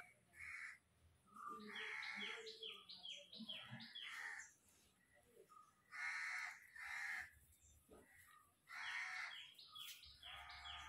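Crows cawing faintly, in three bouts of repeated harsh calls.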